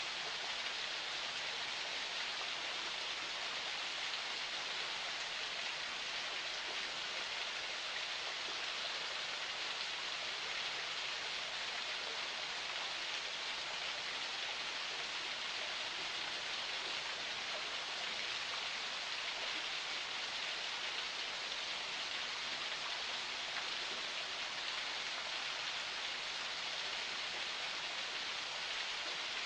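Small forest spring flowing, a steady, unchanging rush of running water.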